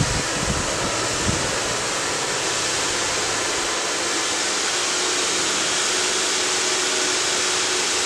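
Hand-held hair dryer running steadily, blowing hot air onto a sheet of thin foam. There are a few low thumps in the first second, and a faint steady motor hum comes up about halfway.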